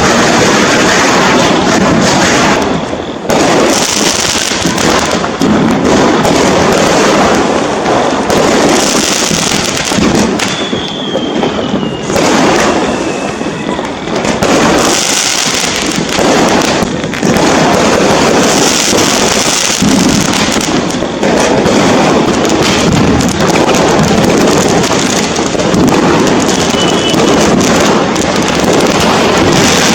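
Dense, continuous barrage of firecrackers and aerial firework shells bursting all around, overlapping bangs and crackle with no let-up. A falling whistle cuts through about eleven seconds in.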